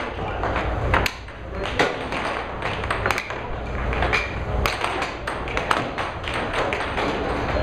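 Air hockey puck and mallets clacking, with the puck hitting the table's rails in sharp, irregular knocks; the hardest come a second or two in. Under them runs the steady low hum of the air hockey table's blower.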